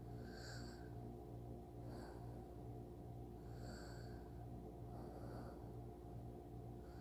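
Soft, slow sleep breathing performed as gentle snoring: a few quiet breaths, each a brief airy hiss about one and a half to two seconds apart, over a steady low electrical hum.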